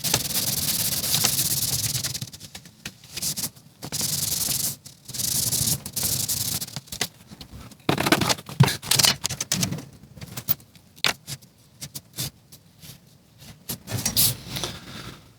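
Repeated rubbing strokes on a clear plastic pattern sheet as unwanted pencil or marker lines are rubbed out, in strokes of about a second at first, then shorter and quicker ones.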